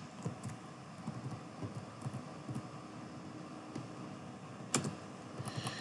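Faint, scattered taps on a computer keyboard, with a sharper click about three-quarters of the way through.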